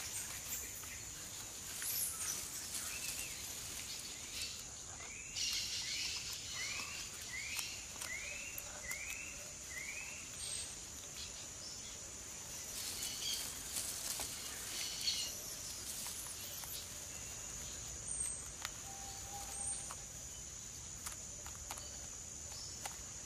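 Tropical forest ambience: a steady high-pitched insect drone with scattered bird calls, including a run of six short rising-and-falling whistles about a second apart near the middle.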